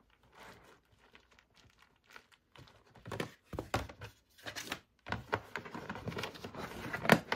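Soft rustling and crinkling as items are pressed down into a clear plastic storage box, then the plastic lid set on and pressed shut with a run of knocks and clatters, ending in a sharp click near the end, the loudest sound.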